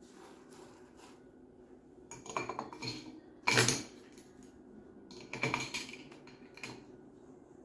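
Metal utensils and dishes clattering and clinking in several short bursts, the loudest a single sharp knock partway through, while a butter injection for a beef roast is being prepared.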